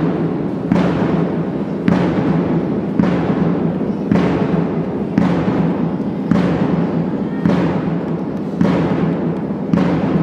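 Slow march music with a heavy drum stroke about once a second, evenly spaced over a steady backing.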